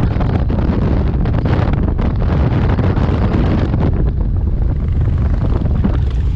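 Heavy wind buffeting on the microphone of a camera riding on a moving motorcycle, with the bike's engine running underneath.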